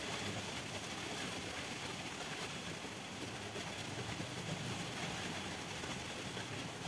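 Steady, even outdoor background hiss with no distinct event.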